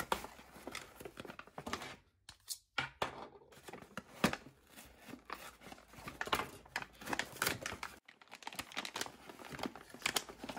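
Cardboard box being ripped open by hand: irregular tearing, scraping and crinkling of the card, in short uneven bursts.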